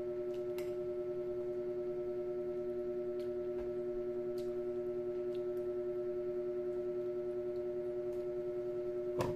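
Background music of steady, held tones like a sustained chord or drone, with a few faint clicks and a louder short knock near the end.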